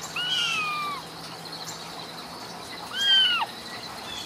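Ragdoll kitten meowing twice. The first is a high mew of nearly a second that falls slightly in pitch. The second, about three seconds in, is shorter and rises then falls.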